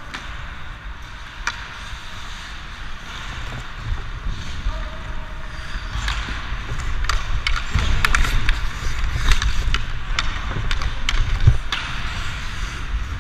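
Hockey skates scraping and carving on the ice, with sharp clacks of sticks and puck that come thick and fast in the second half. Under them runs a low rumble of air on the helmet camera's microphone as the skater moves.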